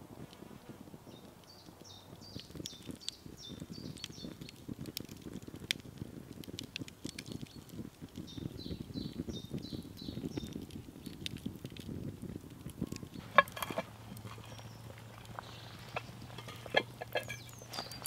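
Wood campfire crackling with many small snaps, while a small bird sings short repeated phrases twice. Late on a sharp loud crack, after which a low steady hum joins.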